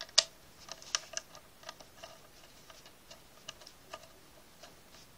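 Irregular small clicks and taps as the detachable antenna of a TP-Link TL-WR741ND Wi-Fi router is handled and fitted back onto its screw connector. The sharpest clicks come a moment in and about a second in, with fainter ones scattered after.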